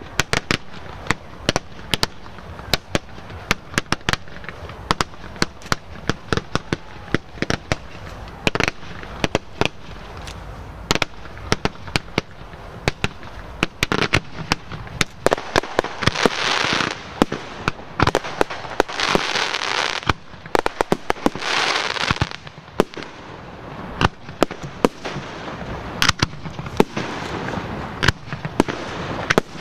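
Aerial fireworks going off in quick succession: a rapid, irregular string of sharp bangs and pops from launches and bursting shells. A little past halfway there are three longer hissing, crackling stretches.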